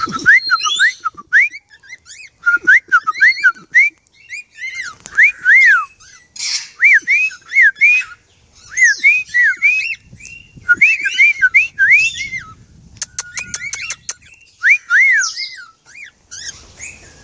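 Albino cockatiels calling, a run of short arched whistled chirps, several a second, each rising and falling in pitch, with fainter higher chirps mixed in. A quick run of sharp clicks comes about thirteen seconds in.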